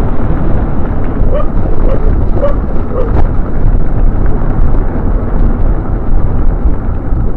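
Wind buffeting the microphone: a loud, steady low rumble of wind noise while riding a bicycle, with a few faint short tonal sounds about one to three seconds in.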